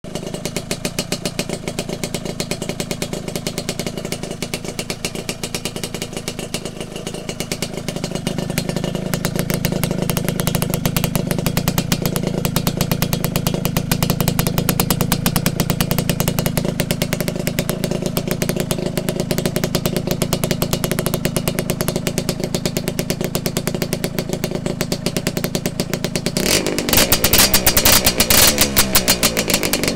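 Kawasaki KSR80's small two-stroke single running through an aftermarket down-type expansion chamber, idling steadily with a rapid, even exhaust pulse. About 26 seconds in, the throttle is blipped a few times, and the pitch rises and falls.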